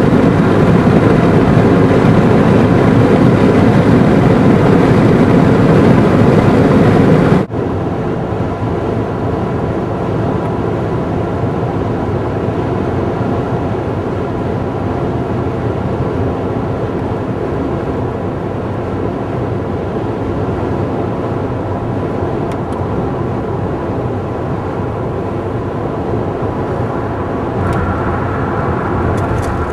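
Steady running noise of a moving vehicle. About seven seconds in it cuts abruptly to a somewhat quieter steady run of the same kind.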